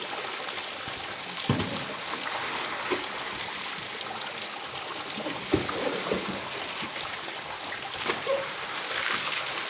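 Steady rain falling, with bare feet splashing through shallow standing water on a concrete court. Sharp thumps about a second and a half in and again past the middle.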